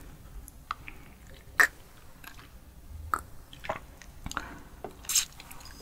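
Close-miked mouth sounds as a shot of soju is drunk: sharp wet clicks and swallows about a second apart, the loudest about one and a half seconds in, with a short breathy hiss near the end.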